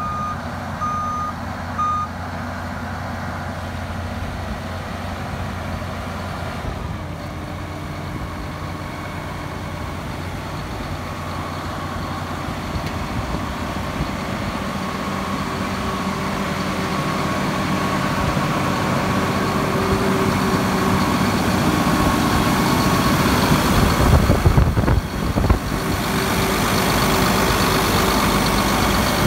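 Diesel engine of a 2014 RoGator RG1300 self-propelled sprayer running steadily, growing louder as the engine bay comes close. Near the start there are three short electronic alarm beeps about a second apart, and near the end a brief louder rush of noise.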